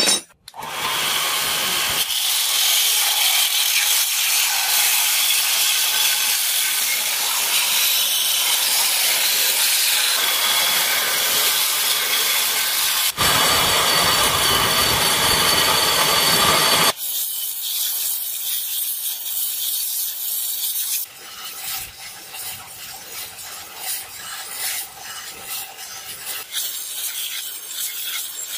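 Belt grinder's abrasive belt grinding the flat of a forged steel blade: a loud, steady rasping hiss. It changes abruptly several times and is quieter and more uneven over the last several seconds.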